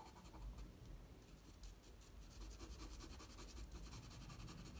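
Faint scratching of a pastel pencil hatching short strokes on pastel paper.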